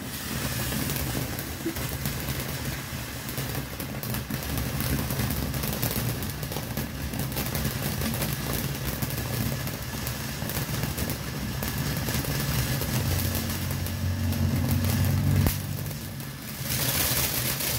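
Ground fountain firework (Phantom Fireworks Snowflake) spraying sparks with a steady rushing hiss, peppered with dense crackling. Near the end it dips briefly, then surges back brighter and louder.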